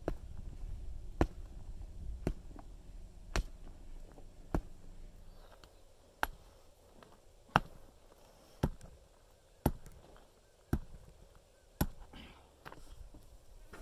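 Sledgehammer pounding dirt packed into a car tire, ramming earth for a tire wall: about a dozen dull strikes, roughly one a second.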